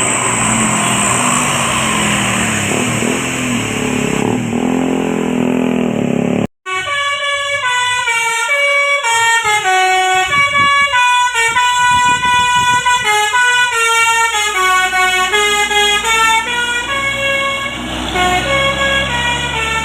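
Road noise and a bus engine running for about six seconds, then an abrupt break. After the break a bus's telolet basuri musical horn plays a tune of quick stepped notes.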